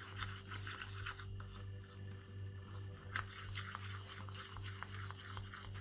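Wooden spatula stirring and scraping sticky red glue slime around a plastic cup: faint, irregular wet squishing and scraping as the slime is still forming and not yet pulled free of the cup.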